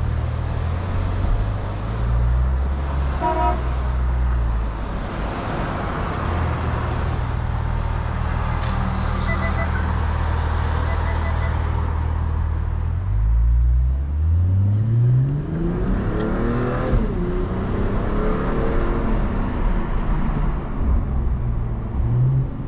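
Mercedes-Brabus CLS engine under acceleration, heard from inside the cabin over a steady low drone of engine and road noise. Its note rises for about four seconds, drops at a gear change, then rises and falls again. A short toot sounds about three seconds in.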